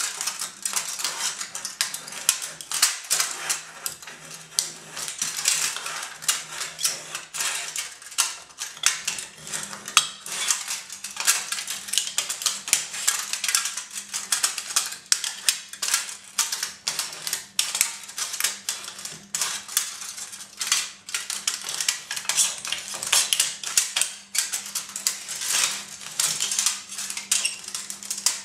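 Steel Will Gekko 1510 folding knife cutting through a thin aluminium beer can on a wooden cutting board: a continuous fast crackle of sharp metallic clicks and crinkles as the blade works through the can's wall.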